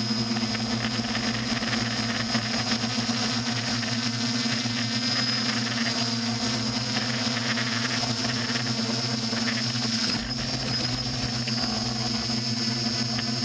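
Steady drone of the engine and propellers of the aircraft carrying the camera, recorded on board, with a thin high whine over it and a brief dip about ten seconds in.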